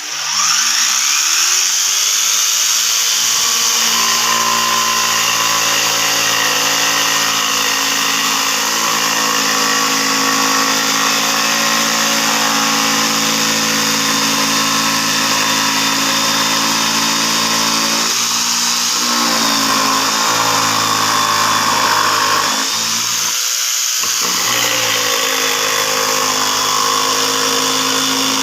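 AEG PST 500 X electric jigsaw switched on, its motor spinning up over about a second and then running steadily at speed. Its note briefly shifts twice, about two-thirds and four-fifths of the way through.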